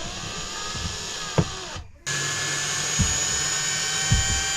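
Power drill running steadily, stopping briefly about two seconds in and then starting again for a longer, louder run.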